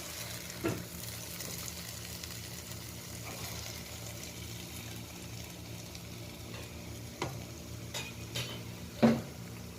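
Idli fry sizzling in a pan of masala as it is stirred with a steady hiss, a spoon knocking against the pan a few times, loudest near the end.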